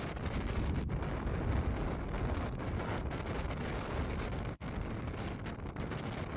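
Strong desert wind buffeting the microphone: a steady, heavy rumbling rush, cutting out for an instant a little past the middle.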